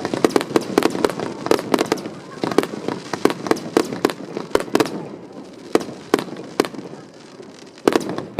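Aerial fireworks bursting overhead: a rapid string of sharp bangs for the first few seconds, thinning out after about five seconds, then a couple of close bangs near the end.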